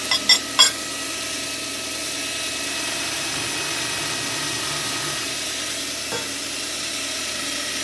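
KEF POD 10 industrial polishing machine running steadily, its motor and spinning polishing mop giving an even hum with a few steady tones. Near the start come three sharp clicks as things are handled in the metal tray of compound bars, and a small knock about six seconds in.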